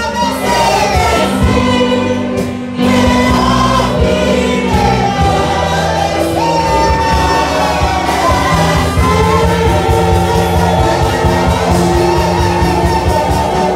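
Church choir singing a gospel worship song into microphones, accompanied by a wind and brass band of clarinets, saxophones and trumpets, with a brief break in the sound about three seconds in.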